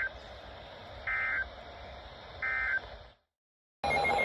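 Weather radio sounding a SAME end-of-message signal: short buzzy bursts of digital data tones about 1.3 s apart over steady radio hiss, marking the end of the warning message. The audio cuts out for a moment just after three seconds, then beeping alert tones start near the end, the opening of the next warning.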